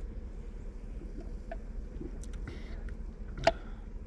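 Person drinking seltzer from an aluminium can: faint swallows over a steady low wind rumble on the microphone, with one sharp click about three and a half seconds in.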